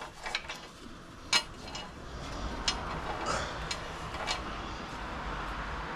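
Metal hand tools clicking and clinking on a truck's steering linkage during a tie rod end replacement, with one sharp click about a second and a half in. A steady low rumble sets in about two seconds in.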